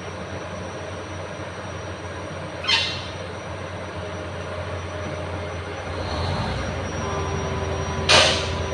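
Diesel engine of heavy earthmoving machinery running steadily, with two short, loud, sharp sounds about five seconds apart.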